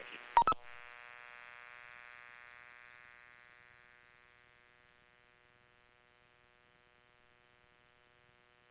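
Police radio scanner between transmissions: a short burst about half a second in, then a steady electrical buzz with hiss that slowly fades.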